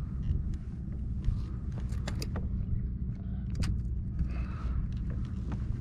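Steady low wind rumble on the microphone, with scattered sharp clicks and knocks of rod and reel being worked.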